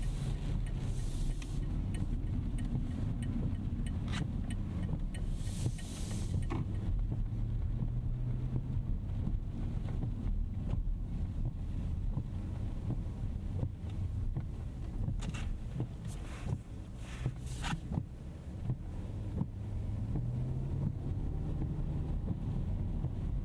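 A Rolls-Royce Ghost Series II with a twin-turbo V12 driving on wet roads: a steady low rumble of road and drivetrain noise, with short hisses of water spray a few times, most strongly about six seconds in and again around fifteen to eighteen seconds in.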